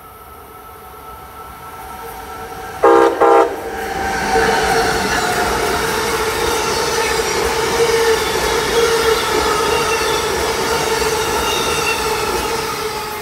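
Amtrak passenger train giving two short horn blasts about three seconds in, a horn salute to waving railfans, then running past at speed with loud rail and wheel noise and a steady tone over it that fades near the end.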